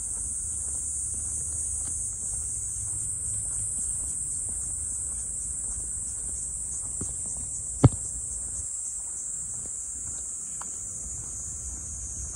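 Steady high-pitched chorus of insects, pulsing for a few seconds in the middle, over a low rumble. A single sharp click about eight seconds in.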